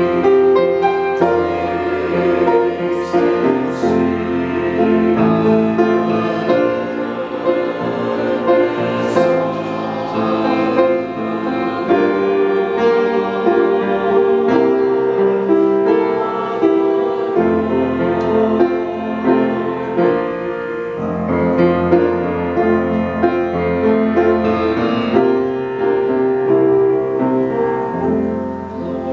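A small church choir singing a hymn in slow, sustained notes, with instrumental accompaniment.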